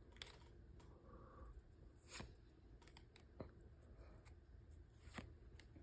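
Near silence broken by a few faint, short swishes and clicks of Pokémon trading cards being slid and flicked through the hands.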